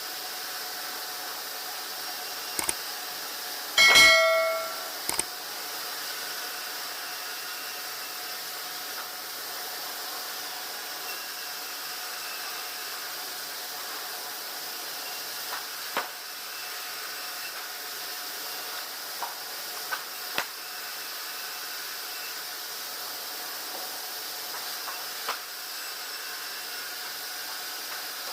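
Steady hiss of sawmill machinery running. About four seconds in, a loud metallic clang rings briefly, and a few light knocks follow later.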